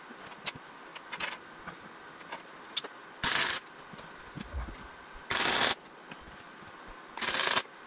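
MIG welder laying short stitch welds: three bursts of arc, each about half a second long and roughly two seconds apart, with light clicks and taps in between.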